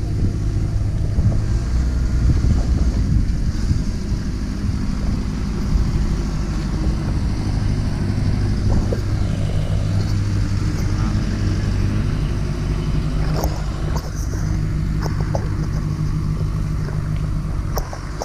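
A truck's engine running steadily: a continuous low rumble with a steady hum, and a few small clicks and taps in the second half.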